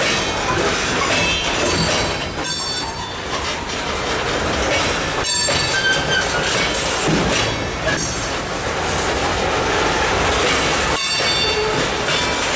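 Freight cars of a mixed freight train rolling past, the wheels clattering on the rails with brief high-pitched wheel squeals coming and going.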